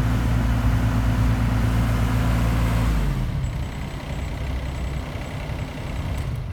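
Wacker Neuson 803 mini excavator's Yanmar three-cylinder diesel running steadily at raised revs, then throttled back about three seconds in, its pitch falling as it settles to a lower, quieter idle.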